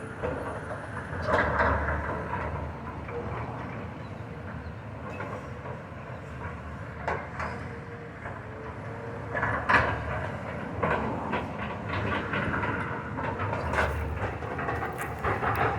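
Heavy demolition machinery running with a steady low rumble, with irregular clanking and crunching of debris and louder crashes about a second and a half in, around ten seconds in, and near the end.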